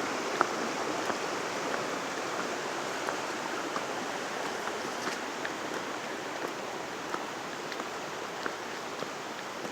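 Rushing water of a mountain stream: a steady rush that slowly fades, with light sharp ticks about once a second.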